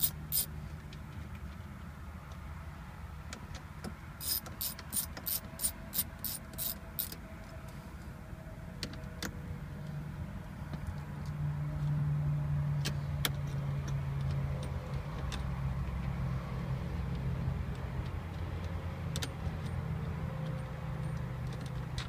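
Socket ratchet clicking as it spins out the 10 mm hex bolts of a car's plastic center-console panel. A run of about ten quick clicks comes a few seconds in, with a few single clicks later, over a steady low hum that grows louder about halfway through.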